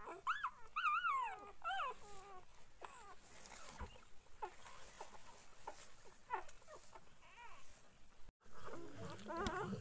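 Newborn pointer puppies whimpering and squeaking in the litter. High, wavering whines rise and fall in the first two seconds, short squeaks are scattered through the middle, and several puppies whine over one another near the end.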